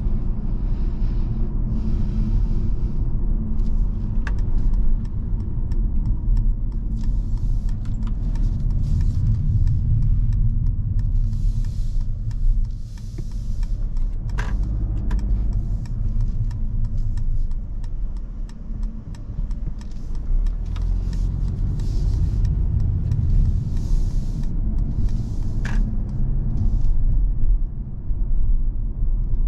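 Inside the cabin of a Mercedes-Benz E 220 d estate driving slowly: a steady low rumble of its four-cylinder diesel engine and tyres, with a few light clicks.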